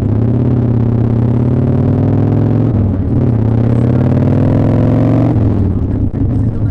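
Motorcycle engine accelerating, its pitch climbing, then dropping at a gear change about two and a half seconds in, climbing again and dropping once more near the end; heard muffled through a microphone tucked inside the rider's leather jacket.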